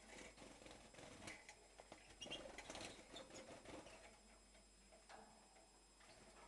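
Faint short chirps and light scuffling from small caged finches, the busiest stretch in the middle.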